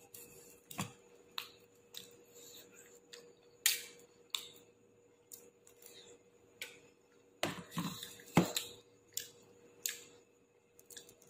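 Someone eating a meal: irregular sharp clicks and taps of chewing, mouth sounds and food against the plate, the loudest about a third of the way in and again about three-quarters in.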